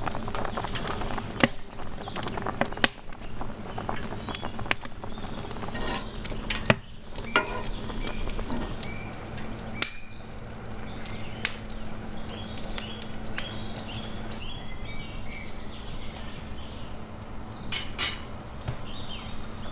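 Metal clinks and knocks of a skimmer against a pot of boiling beef tongues, with birds chirping in the second half.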